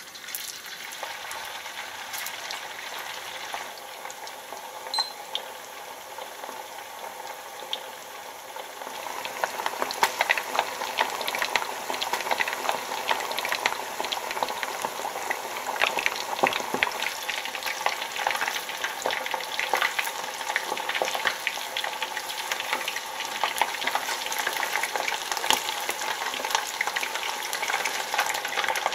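Starch-coated chicken pieces deep-frying in hot oil: a dense, steady crackling sizzle that gets louder about nine seconds in.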